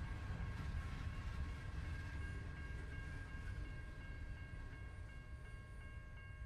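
Empty ballast hopper cars of a freight train rolling past, a low rumble that slowly fades as the last car goes by and the train moves away.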